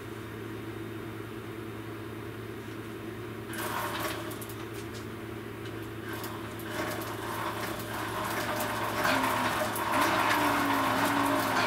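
Electric drive motor of a 2009 Zero MX dirt bike, on a stand, spinning the new rear sprocket and chain under light throttle. Clattering, hissing drivetrain noise comes in a few seconds in and grows louder, and near the end a low motor whine wavers up and down with the throttle. The chain is grinding where it rubs the tensioner bracket.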